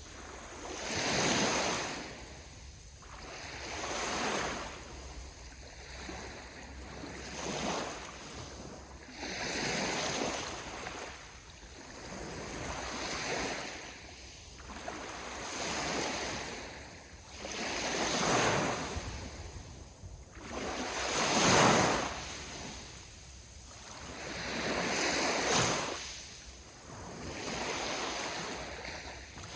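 Ocean waves breaking and washing on the shore, one after another, each swelling up and fading away over about three seconds. The loudest one comes a little past two thirds of the way through.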